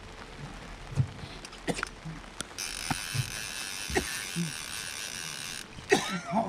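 Fishing reel whirring steadily for about three seconds in the middle as a fish is reeled in to the boat, with a few light knocks around it.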